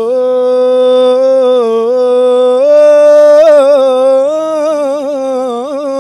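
A young man singing unaccompanied in Tunisian popular (sha'bi) style: long held notes with quick ornamental turns, about 3.5 s in and again near the end.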